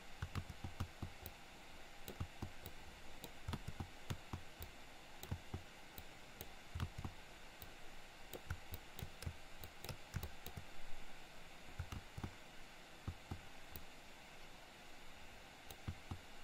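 Faint, irregular clicks and taps of a computer mouse and keyboard being worked, several a second at times, over a faint steady hiss.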